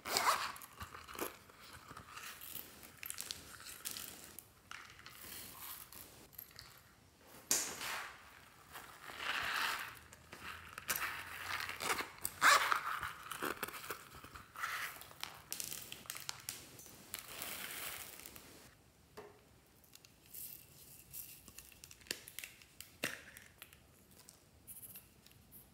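Zipper on a cactus-shaped silicone pencil case being worked open, with crinkly, tearing-like rasps and handling clicks in irregular bursts. The bursts die down to quieter rustling about three quarters of the way through.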